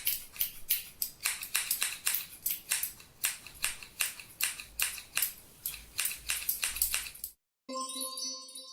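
A rapid, irregular run of sharp clicks and taps for about seven seconds, then a short pause and a ringing tone with overtones near the end.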